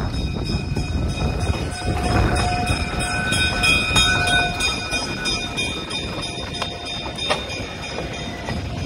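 Chicago Burlington & Quincy 9911A, a 1940 EMC E5A diesel-electric locomotive with two 12-567 engines, passing close by with the stainless-steel Zephyr train: deep engine and wheel rumble with rhythmic clicking of wheels over the rails and a steady high whine. The sound eases a little after the locomotive has gone by and the cars roll past.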